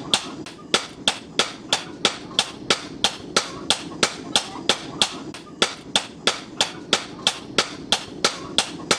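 Hammer striking metal on an anvil in a steady, even rhythm, about four sharp ringing strikes a second.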